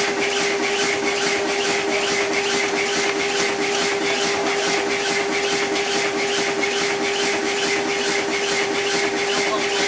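Showman's steam road locomotive running on the spot to drive its dynamo, which lights its canopy bulbs: a rapid, even exhaust beat with a steady hum under it.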